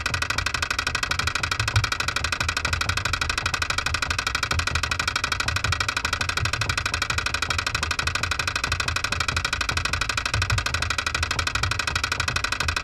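Escalator mechanism heard through an AKG C411 PP contact microphone stuck to the escalator's side panel: a rapid, even clicking over a steady hum and vibration, with the station ambience cut out.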